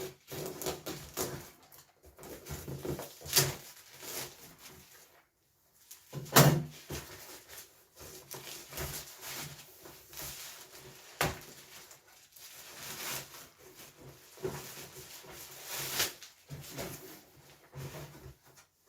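Irregular clicks, knocks and scuffs of paint pots and packaging being handled and unpacked, with one louder thump about six seconds in.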